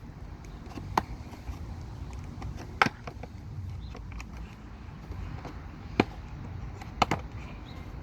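A few sharp plastic clicks and snaps, four in all, as a car sun visor's plastic housing is pried apart with a screwdriver, over a steady low background rumble.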